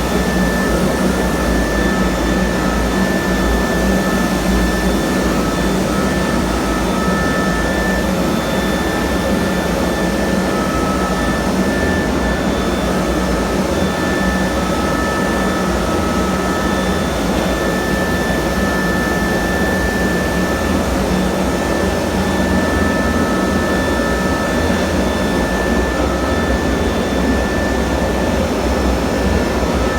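Concrete grinder running steadily on a concrete slab: a continuous motor whine and grinding noise that holds at one level throughout.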